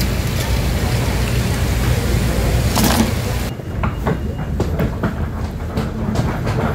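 Steady rushing noise around live-shellfish tanks, then a sudden change a little over three seconds in to street noise: a low traffic rumble with scattered short clicks of footsteps on a concrete sidewalk.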